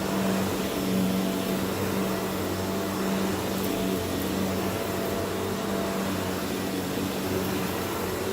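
Vacuum cleaner running steadily while sucking up dirt: a constant motor hum over a rush of air, with a few faint ticks of grit being picked up.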